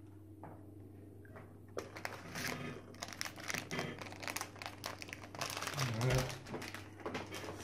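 Plastic candy pouch crinkling as hands tug and work at its top to open it, starting about two seconds in.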